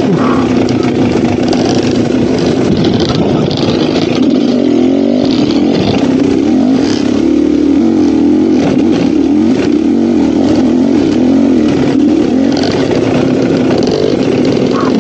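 GasGas dirt bike engine running on the trail, its pitch rising and falling again and again as the throttle opens and closes, with scattered clicks and knocks.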